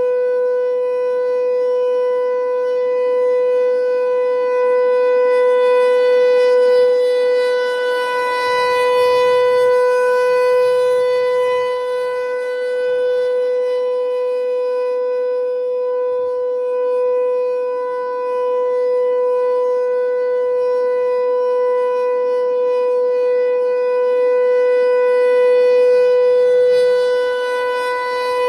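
ASC T128 outdoor warning siren sounding the steady alert signal. It holds one pitch that does not rise or fall, and its loudness swells and fades slowly as the siren head rotates.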